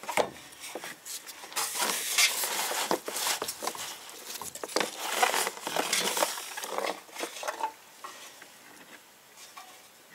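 Hand work on the transfer case: irregular rustling, scraping and light clattering with scattered small clicks while the clear fluid-fill hose is worked free of the vent. It dies down over the last two seconds.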